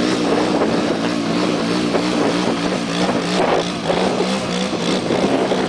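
A 1986 Honda ATV's engine running under load as it pushes through deep mud, its pitch wavering up and down. There are a couple of noisier bursts about three and a half seconds in.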